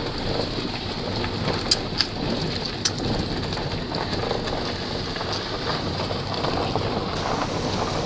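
Car driving on a gravel track, heard from inside the cabin: a steady crunch and rumble of tyres on loose stones, with a few sharp clicks about two and three seconds in.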